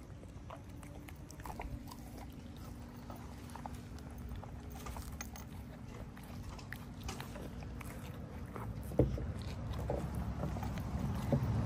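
Two large dogs, one an Alaskan malamute, licking and chewing soft raw-meat and sweet-potato cupcakes off a wooden table: wet smacking with scattered small clicks, and one sharper knock about nine seconds in.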